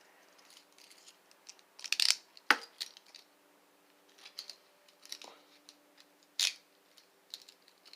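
Metal handcuffs being handled: scattered metallic clinks and clicks, the loudest about two seconds in and again past six seconds.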